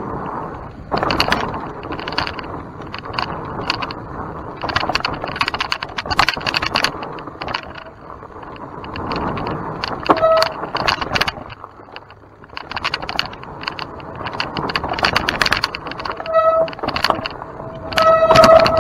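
Mountain bike rolling over rough trail: tyres crunching and the bike rattling with many sharp knocks and clicks. A steady high squeal from the bike sounds briefly twice and then loudly near the end.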